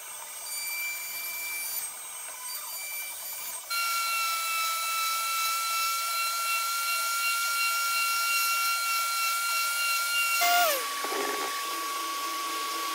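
Random orbit sander running on an epoxy-and-hardwood cutting board: a steady whine that gets louder a few seconds in, then drops to a lower pitch near the end.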